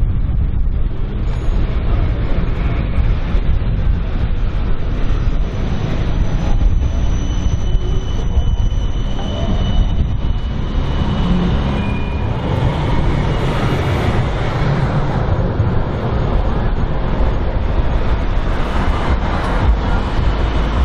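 A GVB city tram rolling past on a curved track, a steady low rumble of wheels on rail with a faint high whine midway through.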